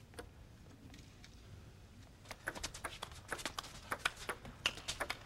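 Hushed hall for about two seconds, then a table tennis rally: the celluloid ball clicking sharply off the bats and the table in quick, irregular succession.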